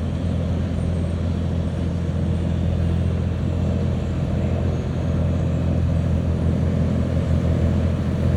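Steady low drone of a motor yacht's engines running under way, a constant hum of several low tones over a faint hiss.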